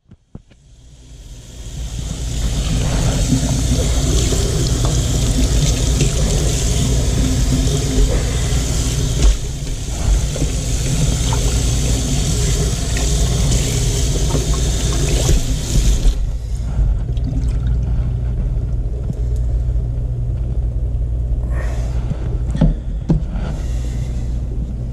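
Water from a kitchen tap running into a stainless steel sink and over a fish being rinsed under it, shutting off about 16 seconds in. After that a steady low rumble remains, with a few light handling knocks.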